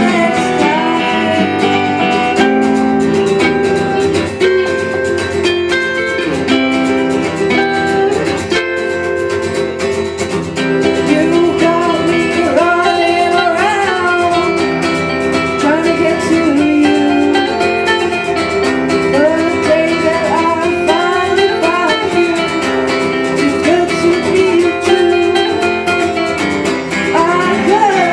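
Two acoustic guitars played live, strummed and plucked, with a singing voice over them.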